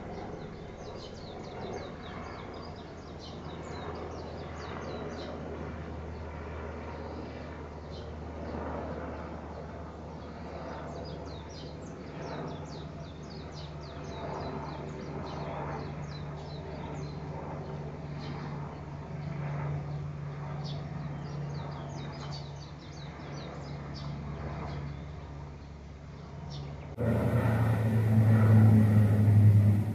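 Low steady drone of airplanes passing overhead, swelling and fading, with birds chirping throughout. Near the end the drone suddenly becomes much louder.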